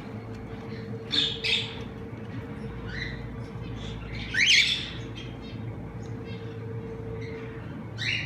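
Cockatiels squawking: two sharp calls about a second in, a louder rising call near the middle and another near the end, with softer chirps between. A steady hum runs underneath and stops shortly before the end.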